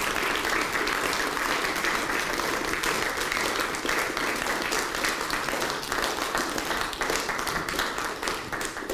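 Audience applauding: many hands clapping steadily, dying away near the end.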